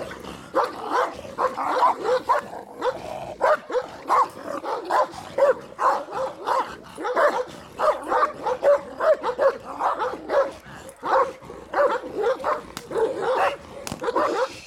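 Caucasian shepherd dog (ovcharka) barking aggressively at a protection-training decoy in a bite suit, in rapid, nearly continuous barks, several a second.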